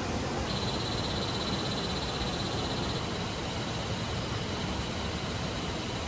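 Steady rush of falling water filling the whole sound. From about half a second in, a high, fast-pulsing trill of an insect or frog sits above it, loudest for the first few seconds and then fainter.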